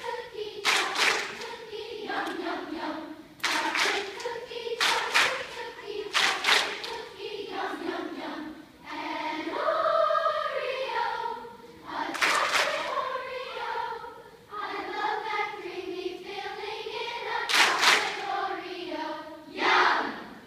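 Large children's choir singing vocal warm-up exercises, with held notes that slide up and down in pitch, punctuated every second or two by short sharp sounds.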